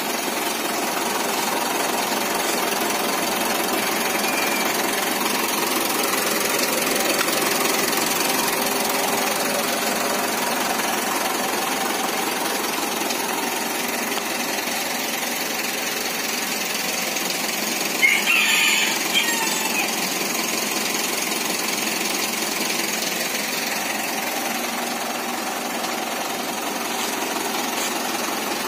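A 2012 Mitsubishi Pajero Sport Dakar's diesel engine idling with a steady rough clatter, the noise it makes before it reaches working temperature. A brief louder, higher sound cuts in about two-thirds of the way through.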